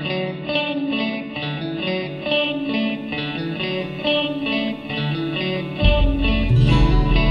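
Rock song: an effects-laden electric guitar picks a quick repeating figure, and about six seconds in a heavy low bass part comes in and the music gets louder.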